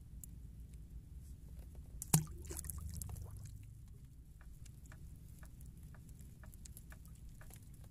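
A single sharp knock about two seconds in, followed by a second or so of scuffling, over a low steady rumble and scattered faint clicks.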